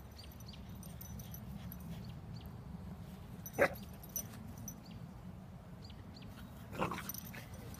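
Puppy giving two short yips, one about halfway through and one near the end.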